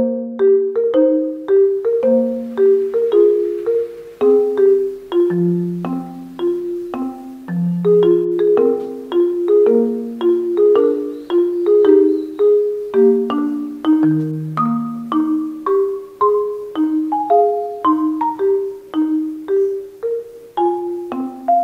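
Background music: a light, bouncy instrumental tune of short struck notes that fade quickly, a melody over lower bass notes at a steady pace.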